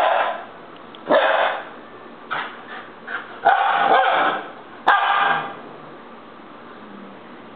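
Siberian Husky puppy barking in a series of loud, pitched outbursts, one drawn out about three and a half seconds in, the demanding barks of a puppy throwing a fit.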